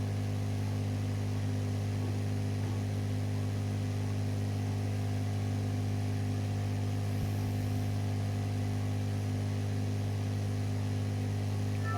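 Steady low electrical hum with evenly spaced overtones, unchanging in pitch and level.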